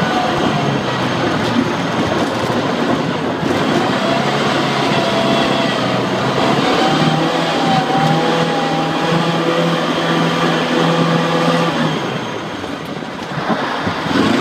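1973 MG Midget's 1275 cc A-series four-cylinder engine running hard under load, the revs rising and falling as the car is driven around the course. Near the end the engine quietens as the car slows, then picks up again briefly.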